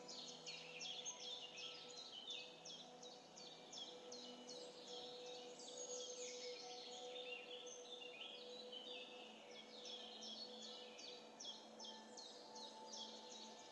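A dense chorus of small birds chirping quickly and continuously, over a faint steady hum.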